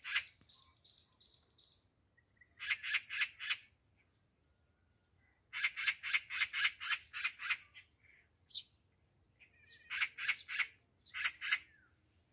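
Magpie giving its harsh rattling chatter, four bursts of rapid notes with the longest in the middle. This is the alarm call a magpie uses to mob a cat.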